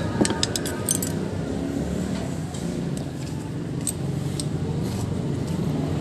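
Small metallic clicks and clinks of tools and parts being handled while the new sprocket oil seal is pressed in: a quick run in the first second, then a few scattered ones. A steady low rumble sits underneath.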